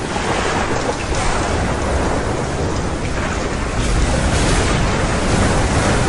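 Steady heavy rain with a low rumble of thunder underneath, the rumble swelling about four seconds in.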